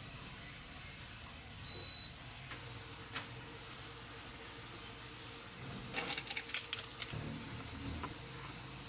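Quiet room noise with a short, high-pitched beep about two seconds in, then scattered light clicks and a quick run of clicks and clatters around six to seven seconds in.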